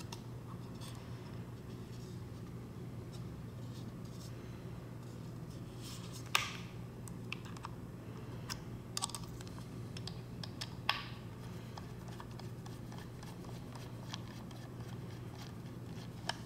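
Small clicks and scrapes of tools and plastic parts as an Amazon Echo Spot is taken apart, with two sharper clicks about six and eleven seconds in, over a steady low hum.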